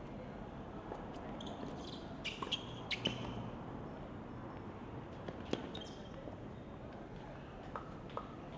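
Tennis ball struck by rackets and bouncing on a hard court during a rally, with short sneaker squeaks: a few sharp hits spaced a second or two apart, the loudest about three and five and a half seconds in.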